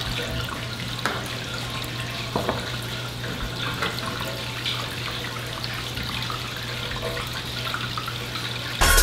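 Water running steadily in a darkroom sink, with small splashes and taps as a Van Dyke print is laid and smoothed in a tray of sodium thiosulfate fixer; a steady low hum underneath. Music comes in near the end.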